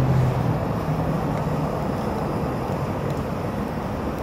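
High-powered gas torch burning continuously against a composite block, a steady even rushing noise with no breaks.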